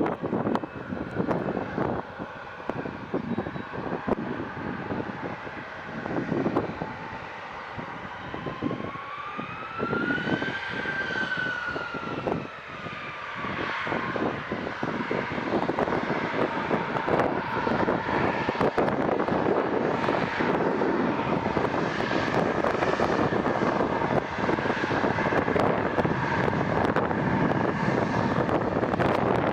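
Airplane engine noise: a whine rises and then falls in pitch about ten seconds in, and the engine noise grows louder and holds steady from about fourteen seconds on.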